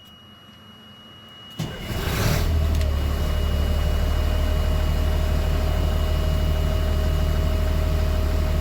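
LMTV truck's Caterpillar six-cylinder diesel cranked and started about a second and a half in, then idling steadily, its air compressor building pressure in the air tanks. A steady high-pitched tone sounds throughout.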